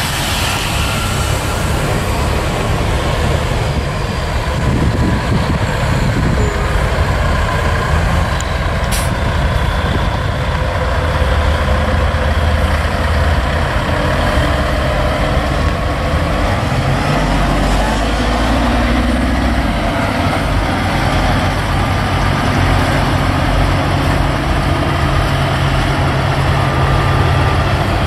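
Diesel engines of big-rig tractor-trailers rolling slowly past in a line, running steadily. Around the middle, one engine's pitch rises as it pulls ahead.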